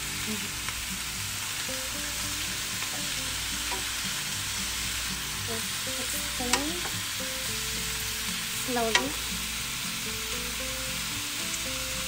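Raw chicken drumsticks and wings sizzling steadily in a hot oiled nonstick pan with onion and garlic, turned over with a wooden spoon.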